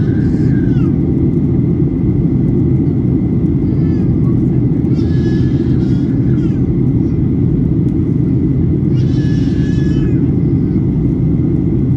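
Steady low rumble of a Boeing jetliner's engines and airflow heard inside the passenger cabin, with a faint steady high whine. Three short high warbling chirps rise above it: right at the start, about five seconds in, and about nine seconds in.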